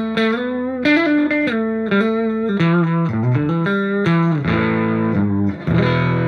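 Electric guitar, a Gibson Les Paul on its middle pickup setting with Seymour Duncan humbuckers, played through a hand-wired Marshall JTM 45 clone valve amp set for a clean tone. It plays a quick run of single notes, then strikes a chord about five and a half seconds in and lets it ring.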